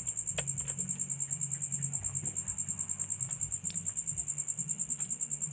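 Crickets chirping in a fast, even pulse, with a few faint clicks.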